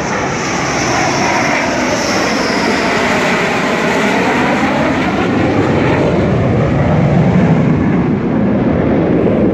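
Dassault Rafale's twin M88 turbofan engines roaring as the jet passes very low overhead on its landing approach with gear down. The sound sweeps with a phasing rush as it goes over, and the deep rumble grows loudest in the last few seconds.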